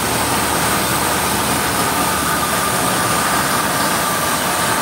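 High-pressure water blaster jetting water under a ship's hull: a steady, unbroken hiss of the jet with a faint steady whine. It is blasting marine growth such as barnacles off the hull.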